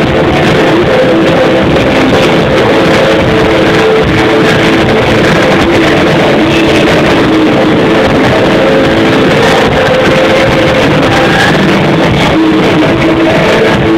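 Rock band playing live at full volume over a venue PA, with electric guitars holding droning notes. It is recorded from within the crowd and sounds distorted and muffled.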